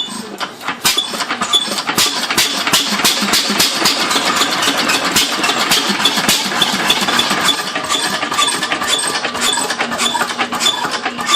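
An old engine running with a rapid, uneven clatter of knocks and clicks, growing louder over the first couple of seconds and then holding steady.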